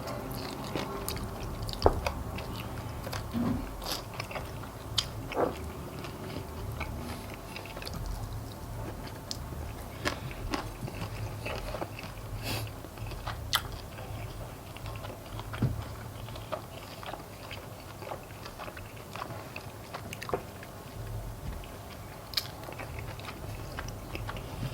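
Close-miked chewing of fried chicken wings, with sharp crunches and cracks at irregular intervals as the chicken bones are bitten through.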